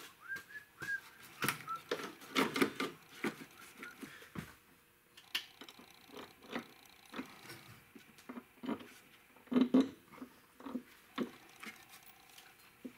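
An electric vacuum pump being handled and held against a car's firewall for a test fit: irregular knocks, clicks and scrapes of metal against sheet metal and plastic trim, with a short squeak near the start and the loudest knocks a little under two-thirds of the way in.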